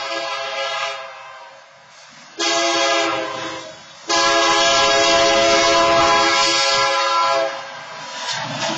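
BNSF diesel locomotive's multi-chime air horn sounding for a grade crossing: a blast trails off about a second in, then a shorter blast, then a long blast of about three seconds. Near the end a lower rumble comes in as the locomotive reaches the crossing.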